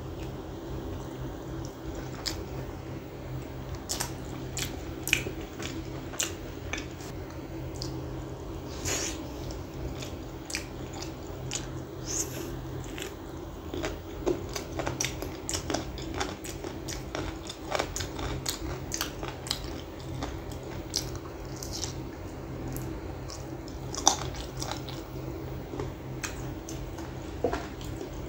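Close-up eating sounds of a man gnawing meat off a gravy-coated chicken leg bone: irregular wet mouth smacks, chewing and small crunches, with one sharper smack about three quarters of the way through.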